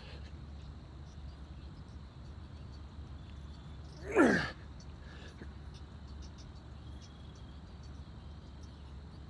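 A man's strained exhale, a loud groan falling in pitch, as he pushes up from a push-up about four seconds in. Faint insect chirping and a low steady hum underneath.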